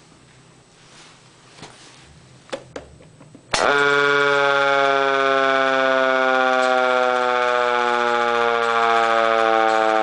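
Federal Signal Model C4 mechanical siren cutting in suddenly at full pitch about three and a half seconds in, then winding slowly down in pitch as it coasts. A few faint clicks come before it starts.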